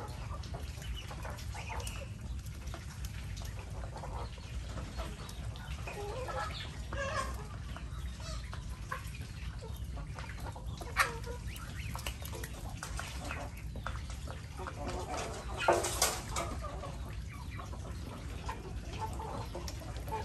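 Backyard flock of chickens and muscovy ducks clucking and calling in scattered short bursts, with two louder, sharp sounds, one about halfway through and one about three-quarters of the way through.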